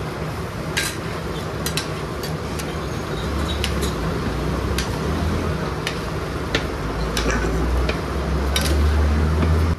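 Metal spatulas clinking and tapping on a large iron tawa griddle as mutton liver is stir-fried, a dozen or so irregular sharp clinks. Underneath, a low rumble swells in the second half.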